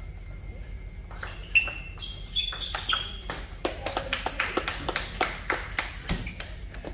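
Table tennis rally: a celluloid-plastic ball clicking off paddles and bouncing on the table in a quick run of sharp taps that grows denser about halfway through. A few short sneaker squeaks on the floor come before it.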